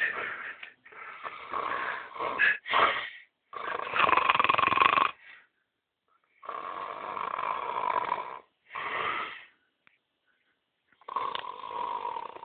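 A man snoring in deep sleep: a series of long, loud snores, one every two to three seconds.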